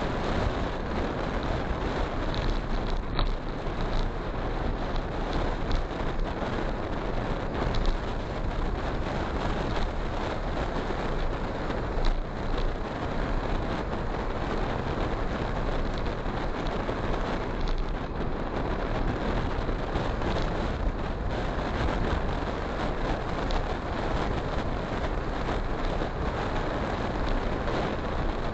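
Steady rushing wind and road noise buffeting the microphone of a camera mounted on a moving motorcycle at cruising speed, with no clear engine note above it.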